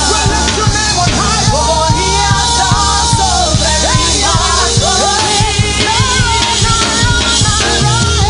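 Live gospel praise-break music: singing over a fast, steady drum beat and heavy bass.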